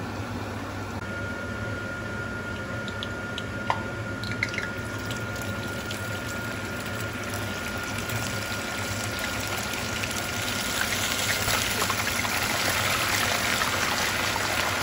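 Pork intestines frying in a pan of hot oil, a steady sizzle with a few sharp pops early on. It grows louder and more crackly about ten seconds in as the oil bubbles hard around the pieces.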